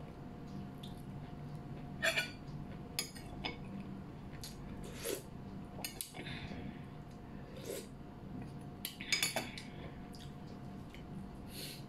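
Eating at a plate: scattered sharp clicks and taps of bones and utensils against the dish, with a cluster of several quick clinks about nine seconds in, over a faint steady hum.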